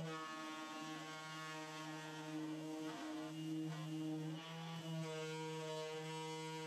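Makita 18V cordless orbital sander running on bare wood, a steady motor buzz that wavers briefly about three seconds in as the sander is moved across the drawer.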